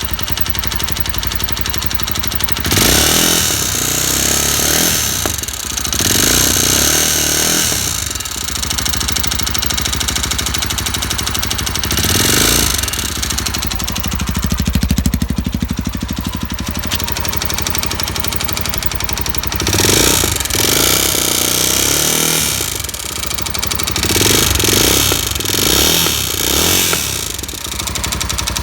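Irbis TTR250 motorcycle's single-cylinder engine idling and revved briefly several times. It carries an extraneous noise the owner cannot place, although the piston, rings, timing chain and tensioner, valves and clutch are all new.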